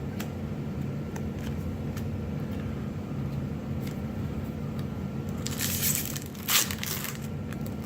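Foil booster-pack wrapper crinkling and tearing open, loudest for about a second and a half from about five and a half seconds in, over a steady low room hum with a few faint clicks of card handling.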